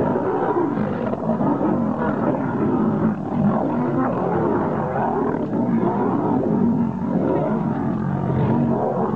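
A male lion and several lionesses fighting, several of them growling at once so that the growls overlap without a break.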